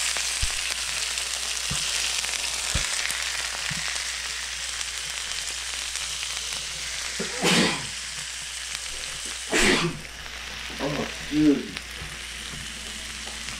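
Oil-marinated New York strip steaks sizzling on a George Foreman electric grill plate right after being flipped, a steady hiss that eases a little. Two brief louder bumps come about halfway through.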